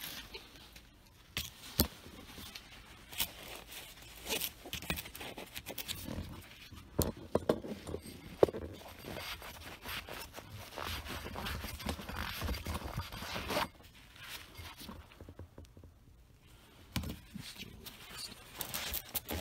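Handling noise from a catch-can cup and shop rags: scattered clicks and knocks, the loudest about two seconds in and again about eight seconds in. A stretch of scraping and rustling follows, then it goes quiet for a few seconds near the end.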